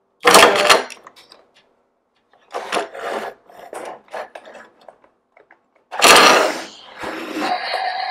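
Hard plastic toy truck and toy cars being handled: loud knocks and clattering scrapes as the plastic ramp and cars are moved, the loudest near the start and about three-quarters through. Near the end a steady sound with held tones comes in.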